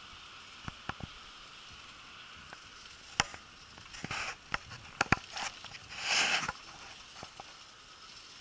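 Ride noise picked up by a handlebar-mounted camera on a road bike: a steady hiss of wind and tyres, with irregular knocks and rattles as the bike goes over bumps in the road, and a short rush of noise about six seconds in.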